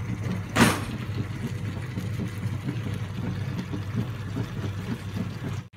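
Boiled tapioca tipped off a wooden spoon into a pan of beef masala: one loud thump about half a second in, over a steady low hum and faint crackling from the pan.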